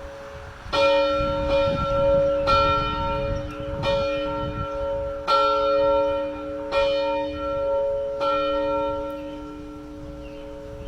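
A single church bell rung, struck six times about a second and a half apart, each stroke ringing on into the next and the hum dying away after the last.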